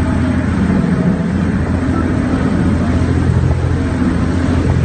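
Motorboat engine running steadily underway, a low even drone over a constant rushing noise.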